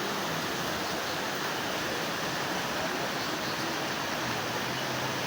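Floodwater rushing in a steady, unbroken wash of noise.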